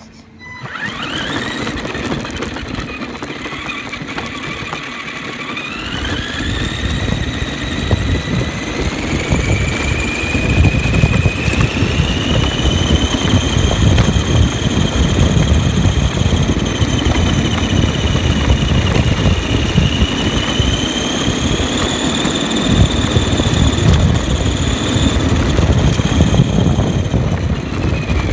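ARRMA Granite Voltage RC monster truck driving on rough asphalt, heard from on board: its 20T electric motor and gears whine, rising in pitch in steps as the truck speeds up over the first ten seconds, then holding high and wavering, over a heavy rumble and rattle from the tyres and chassis. The sound cuts off suddenly near the end.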